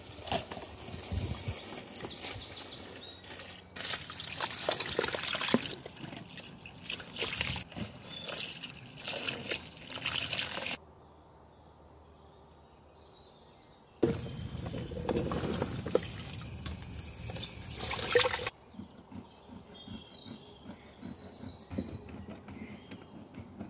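Water running and splashing into a perforated stainless-steel colander as button mushrooms are rinsed. It comes in two spells with a pause of about three seconds between, then dies down to a quieter trickle.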